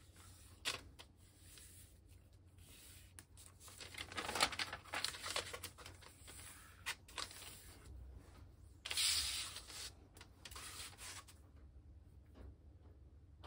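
A large sheet of origami paper rustling and sliding on a cutting mat as it is unfolded and smoothed flat by hand. There are light clicks of paper early on, a longer rustle about four seconds in, and the loudest brief rustle about nine seconds in.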